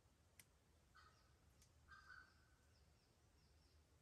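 Very faint forest ambience: a bird calls twice, a short call about a second in and a longer, louder one about two seconds in, over a low rumble, with two sharp single ticks of raindrops.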